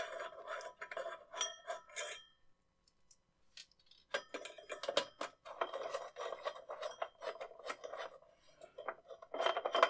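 Screwdriver working the screws of the CPU heat sink on a DEC 3000 Model 500 board: quick runs of small metallic clicks and clinks with a light ringing, stopping for about two seconds early on before starting again.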